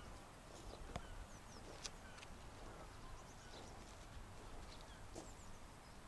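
Quiet seaside ambience with faint, high bird chirps now and then and a couple of soft clicks.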